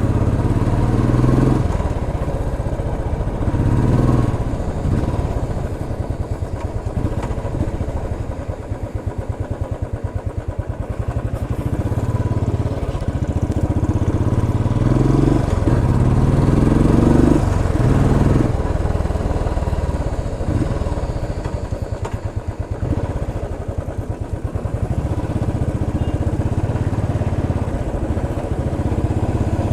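Royal Enfield Classic 350's single-cylinder engine and exhaust running while the bike is ridden through streets, the engine speed and loudness rising and falling, easing off about a third of the way in and again near three-quarters.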